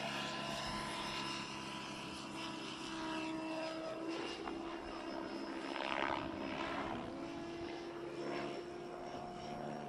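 Radio-controlled DB7 helicopter flying aerobatic manoeuvres: a steady motor and rotor whine whose pitch shifts slightly, with the rotor blades swishing louder about six seconds in.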